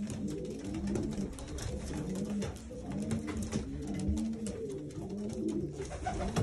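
Racing pigeons cooing, several birds at once with their low rising-and-falling coos overlapping throughout, and scattered light clicks among them.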